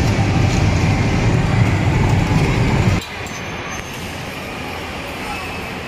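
Spinning amusement ride with ride cars in motion, running with a loud, steady low rumble. About three seconds in it drops suddenly to a quieter steady noise.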